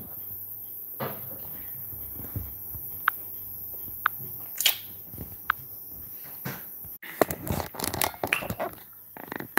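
Handling noise from a handheld phone: scattered small knocks, taps and rustles, with three brief high squeaks a second or so apart. About two thirds of the way through there is a sudden break, and after it the clicking and rustling come thicker.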